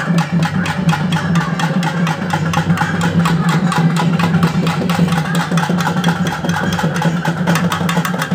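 Traditional Tamil festival drumming: a fast, even beat of many drum strokes a second over a steady low droning tone.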